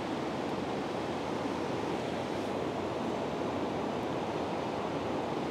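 River water flowing and rushing steadily, an even noise with no distinct events.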